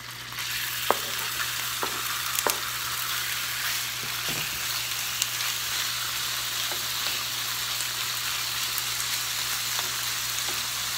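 Raw cubed chicken sizzling in hot oil in a nonstick skillet, the sizzle jumping up about half a second in as the last pieces land, then holding steady. A spatula clicks and scrapes against the pan a few times in the first few seconds as the pieces are spread out.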